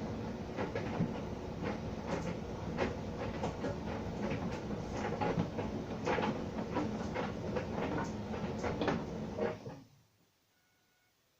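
Electrolux tumble dryer running on its cotton programme, the drum turning with a steady rumble and frequent irregular clicks and knocks of the laundry tumbling inside. The sound stops abruptly about ten seconds in.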